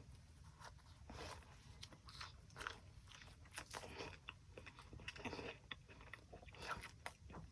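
Faint, irregular crunching and chewing of someone eating battered fried-fish tacos, over a low steady hum.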